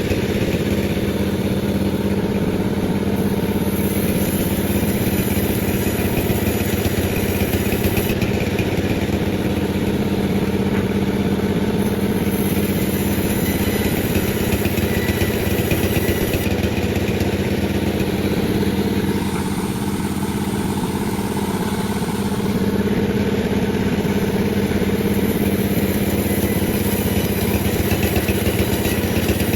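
Panda36 chainsaw running steadily at high speed while sawing a durian log, dipping slightly about two-thirds of the way through.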